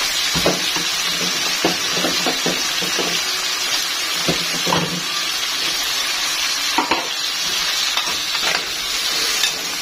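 Vegetables and spice paste sizzling in a frying pan as fish pieces are stirred in. A spatula knocks and scrapes against the pan, in a quick run of taps early on and a few single knocks later.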